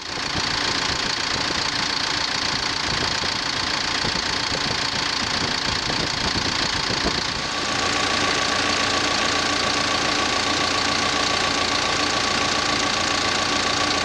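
2013 Terex TLB840 backhoe loader's diesel engine running steadily, heard close up at the open engine bay. About halfway through it grows slightly louder, with a steady hum added.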